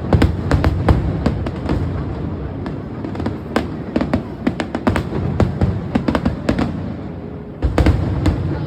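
Fireworks going off, with irregular sharp pops and crackles over a low rumble of bangs, several a second and a denser cluster near the end, with music underneath.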